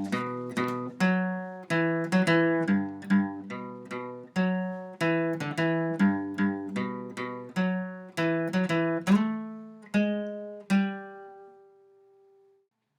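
Acoustic guitar music: plucked notes and chords at an unhurried pace, ending about eleven seconds in with a last note left ringing to fade.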